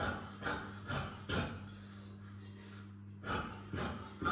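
Scissors cutting along a drafted seam allowance: short crisp snips about two a second, with a break of about two seconds in the middle. A steady low hum runs underneath.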